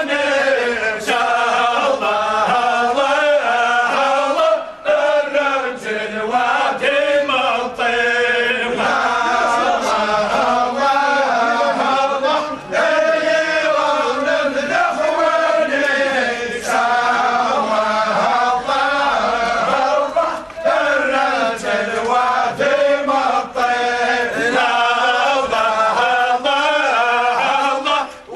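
Large group of men chanting together in unison, a funeral procession chant, repeating the same phrase with a short pause about every eight seconds.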